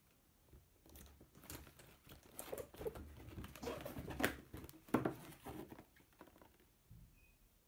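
A cardboard toy box with a clear plastic window being turned over in the hands: scattered rustles, taps and crinkles of card and plastic, the loudest about four and five seconds in, dying away near the end.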